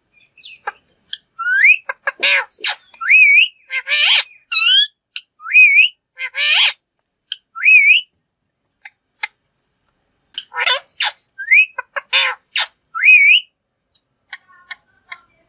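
Green parrot calling: a run of short rising whistles repeated about once a second, mixed with harsh screeches. It pauses for about two seconds midway, then starts again.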